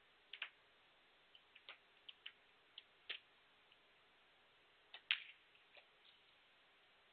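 Snooker shot: the cue tip strikes the cue ball, and the cue ball clicks sharply against the yellow about five seconds in, followed by a few fainter knocks. Scattered light ticks and taps sound earlier against near silence.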